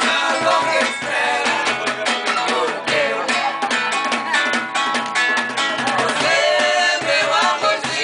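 Several voices singing together in unison to a strummed acoustic guitar, with a drum tapping out a steady beat.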